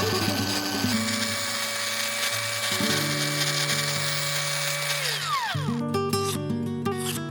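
Angle grinder with a flap disc running at a steady whine, then switched off about five seconds in, its pitch falling as it spins down. Background music plays throughout.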